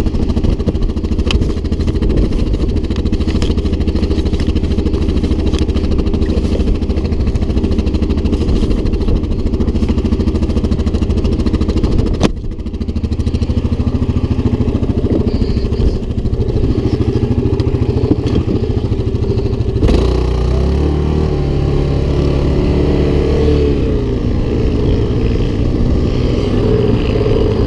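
Yamaha Grizzly 700 ATV's single-cylinder four-stroke engine running under way. It holds a steady note, drops briefly about twelve seconds in, and from about twenty seconds on its pitch rises and falls with the throttle.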